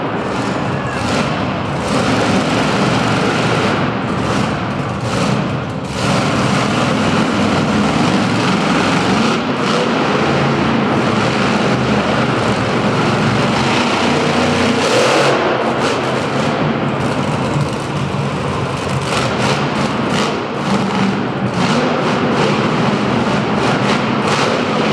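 Monster truck engine running loud, revving up and down as the truck drives and turns on the dirt.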